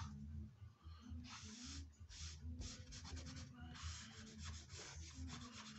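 Hand rubbing on a ceruse-finished swamp ash bass body: a series of quick, irregular scrubbing strokes across the wood, working back the ceruse to lighten its darker spots.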